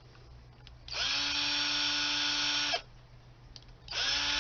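Small cordless electric screwdriver driving out the Torx screws of a zip drive: two runs of a steady motor whine, each about two seconds long, with a short pause between.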